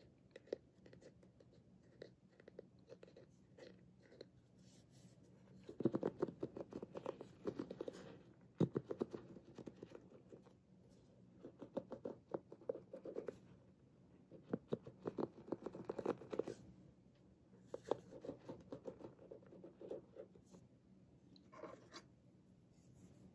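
Fingers tapping and scratching on a bamboo paddle hairbrush, over its wooden back and its wooden bristle pins: runs of quick, crisp clicks and scratches lasting a second or two, with scattered single taps between.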